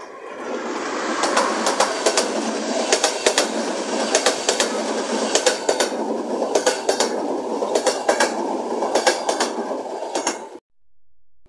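Electric-hauled passenger train passing close: a steady rushing noise from the wheels and running gear, with the wheels clattering over rail joints in quick groups of clicks. The sound cuts off abruptly near the end.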